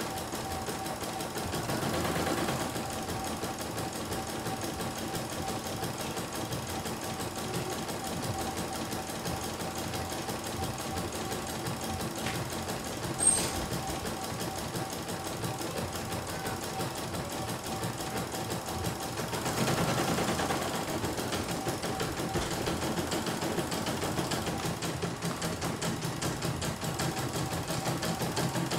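CNY E900 computerized embroidery machine stitching a design, its needle running in a fast, even rhythm over a steady motor whine. It briefly gets louder twice, and there is one sharp click near the middle.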